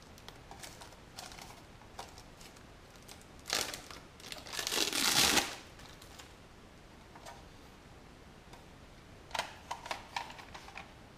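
Bubble-wrap plastic bag crinkling as a car radio head unit is slid out of it, loudest in a rustle about four to five seconds in. A few light plastic clicks and taps from handling the unit come near the end.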